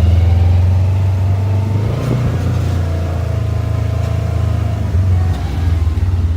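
Engine of a side-by-side off-road vehicle running under way, a steady low drone whose pitch shifts slightly with the throttle about two and five seconds in.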